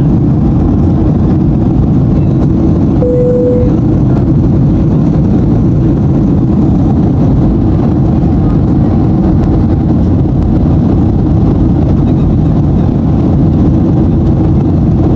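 Jet airliner cabin noise in cruise: the steady, loud low rush of the engines and airflow heard inside the cabin. A short steady tone sounds once about three seconds in.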